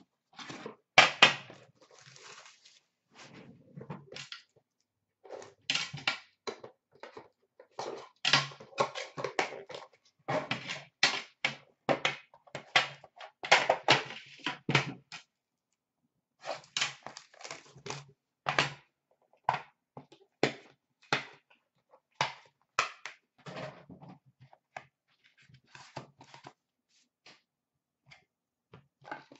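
Hands unwrapping a hockey card box: packaging crinkling and crumpling, with many sharp clicks and knocks as the card tin and wrappers are handled. There is a short pause about halfway.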